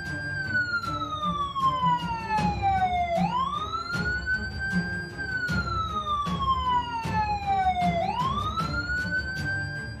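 Emergency-vehicle siren wailing: each cycle climbs quickly, holds briefly, then slides slowly down before rising again, about every five seconds. A steady low beat with regular clicks runs underneath.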